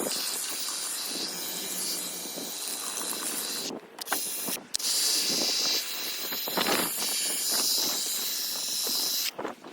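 Low-pressure water spray from a Ryobi EZ Clean cordless pressure washer hissing against a muddy mountain bike. It stops briefly about four seconds in, again half a second later, and near the end.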